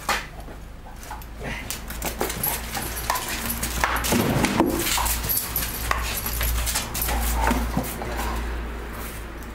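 A German shepherd police dog scuffling and jumping on a concrete floor as it tugs on a toy, its claws clicking and scraping, with a short, louder dog sound about four seconds in.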